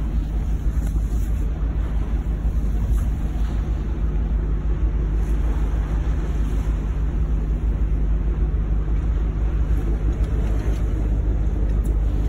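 Steady low rumble of a boat under way at sea: the engine's drone mixed with the rush of water and wind noise.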